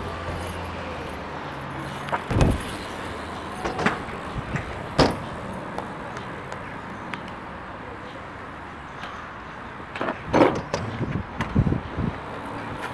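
BMX bike riding a skatepark: sharp knocks and thumps of the bike hitting and landing on ramps, about two seconds in, twice more a few seconds later, and a louder cluster near the end, with tyres rolling in between.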